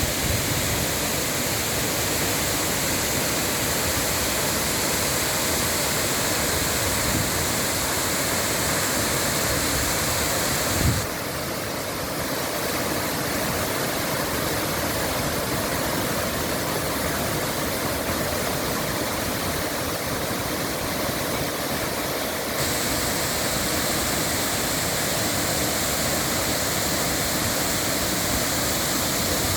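Waterfall: water falling and rushing in a loud, even roar. A brief knock comes about eleven seconds in; after it the hiss sounds duller until about twenty-three seconds in, when the brighter sound returns.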